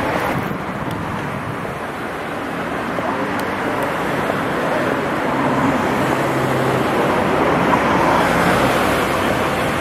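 Steady city traffic noise, with a low engine hum standing out in the middle and the noise growing slightly louder toward the end.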